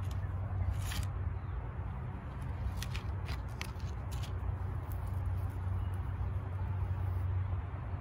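Paper seed packets crinkling as they are handled, a few short crackles in the first half, over a steady low hum.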